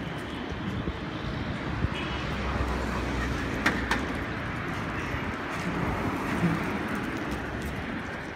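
Street traffic on the road alongside, with a vehicle rumbling past about three seconds in and two sharp clicks just after.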